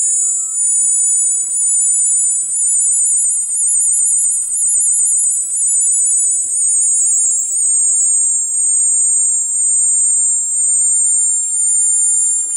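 Electronic background music dominated by a loud, very high-pitched synthesizer tone that warbles strongly in the first half and then steadies, pulsing about once a second.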